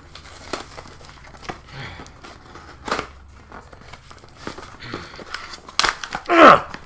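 Cardboard shipping box being pried and torn open by hand, with crinkling, scattered rips and clicks. Near the end comes a louder, short sound that falls in pitch.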